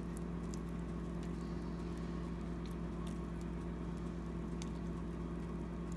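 A steady low mechanical hum with a few faint, scattered ticks and crackles as water is dribbled onto hash brown patties on a hot wire tray.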